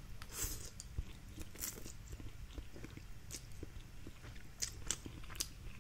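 Close, quiet eating sounds of stir-fried instant noodles: a mouthful drawn in with chopsticks, then chewing with soft wet mouth clicks and a few short slurps.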